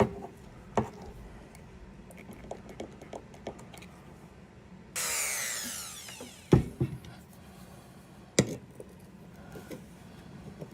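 Screwdriver working at the reversing switch of a vintage Craftsman ratchet: light metal clicks and taps, with a scrape lasting about a second and a half about five seconds in, then two sharp knocks about six and a half and eight and a half seconds in.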